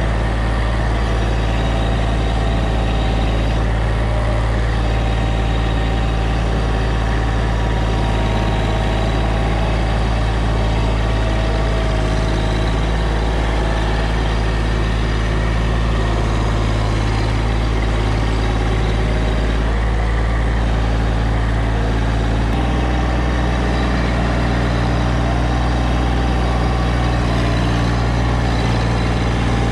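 An engine running steadily at a constant speed, with a deep hum; its low note changes abruptly about three-quarters of the way through.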